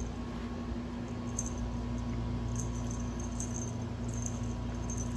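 Faint, scattered jingling of a wand cat toy's small bell as it is swung over the kittens, over a steady low hum.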